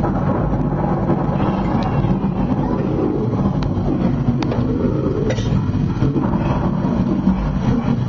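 Steady low rumbling background noise, with a few faint clicks in the middle.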